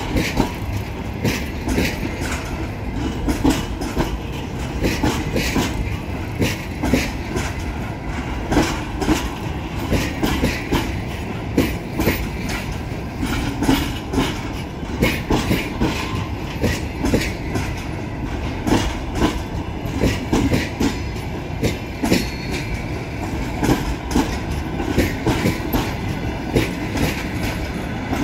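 A departing passenger train's coaches rolling past close by, their wheels clicking and knocking over rail joints in a steady stream under a continuous rumble.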